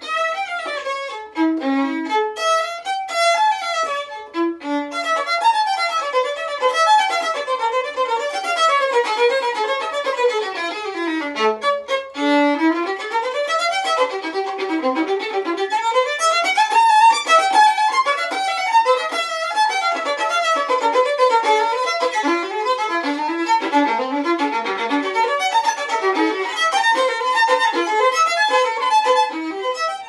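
A Chinese-workshop copy of a Guarneri violin played solo with the bow, in fast running passages that sweep down and up its range. About eleven seconds in the playing drops to the bottom of the range, then climbs straight back up.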